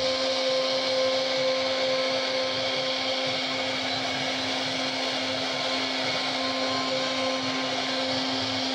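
CNC router spindle running at a steady speed while its bit carves wood: a constant whine over an even rushing noise.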